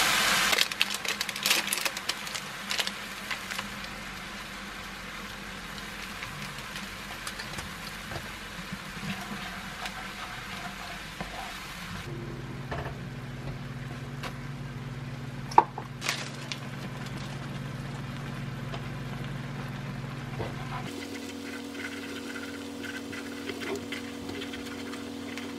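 Skim milk heating with onions and crab sticks in a frying pan, a steady low sizzle, while a wooden spoon stirs and scrapes through the sauce, with small clicks and one sharp knock against the pan. A steady low hum joins about halfway.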